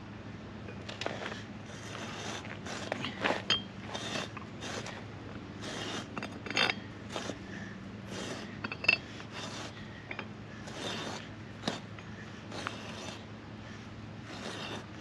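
Irregular metallic clicks, clinks and scrapes from hands and tools working on a mailbox ground-screw anchor at the foot of a 4x4 post, some clicks ringing briefly, over a steady low hum.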